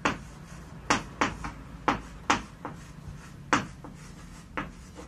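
Chalk writing on a blackboard: about nine short, sharp taps and strokes at irregular intervals.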